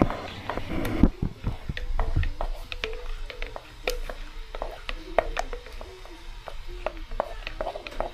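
Wooden stirring stick working a thick paste in an aluminium pot, with irregular sharp knocks and clicks as the stick strikes the pot.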